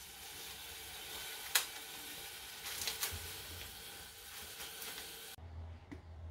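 Chopped vegetables sizzling faintly in a pan on a gas stove, a steady hiss, with a sharp click about one and a half seconds in and a few crackles around three seconds. The sizzle cuts off about five seconds in, leaving a low hum.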